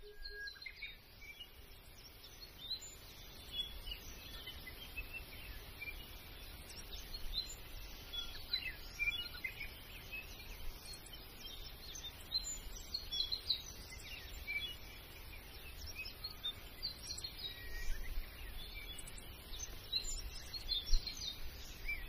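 A flock of plum-headed parakeets chirping: many short, high calls, overlapping and irregular, over a low steady rumble.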